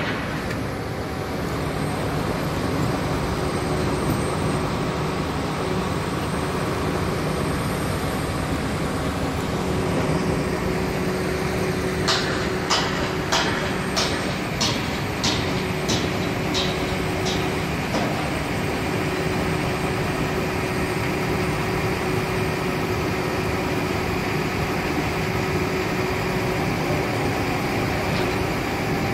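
Heavy machinery engine running steadily with a low hum. In the middle comes a run of about a dozen sharp metallic knocks, roughly two a second.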